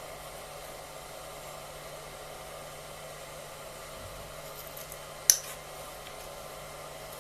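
Steady fan-like whir over a faint low hum, broken by a single sharp click about five seconds in.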